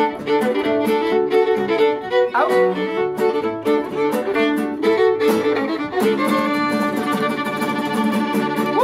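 Fiddle playing a fast reel with quick bowed notes, backed by a strummed acoustic guitar.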